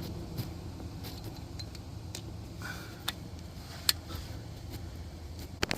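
Scattered light clicks and knocks from hands and tools working at the differential breather tube under a car, over a low steady hum.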